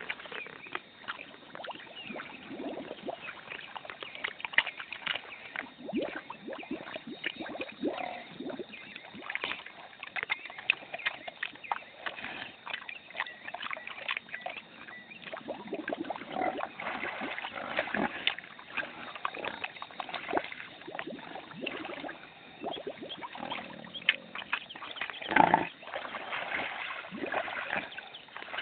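Pig grunting and snuffling with its snout in water, with irregular wet sloshing and clicks; the loudest burst comes near the end.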